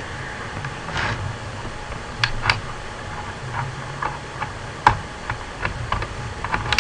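Scattered small clicks and taps at irregular intervals, from handling an SD card and pushing it into a computer's card slot, over a low steady hum.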